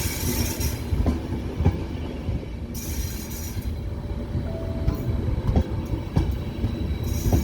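Passenger train rolling slowly through a station, a steady low rumble with wheels knocking over rail joints at uneven gaps. Short bursts of high hissing come in at the start and again about three seconds in.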